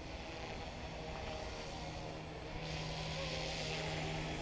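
Yu Xiang UH-1 Huey remote-control helicopter's electric motor and rotor whirring steadily, with a hiss that swells about two and a half seconds in.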